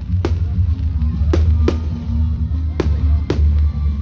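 Fireworks going off: about five sharp bangs at irregular intervals, over a steady low rumble.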